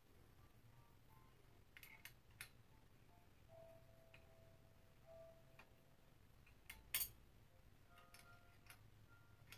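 Near silence with a few faint metallic clicks and a sharper click about seven seconds in, from a wrench working the clamp on a steel clothes-rack upright.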